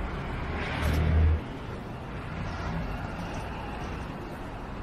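Low steady engine rumble, with a brief louder surge about a second in.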